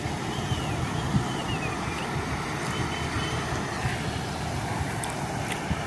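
Water rushing out through a breach in an irrigation canal bank as the canal drains: a steady rushing noise with a low, uneven rumble.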